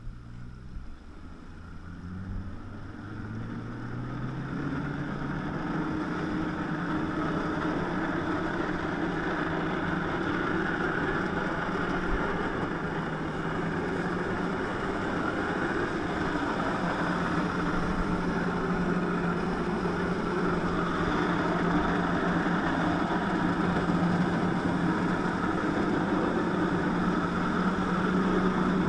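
Jet ski engine driving a flyboard through its hose. Its pitch and loudness rise over the first few seconds as the throttle opens, then it runs steadily at high revs under a rushing noise.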